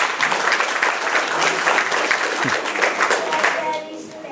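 Audience applauding with many hands clapping, dying away in the last second.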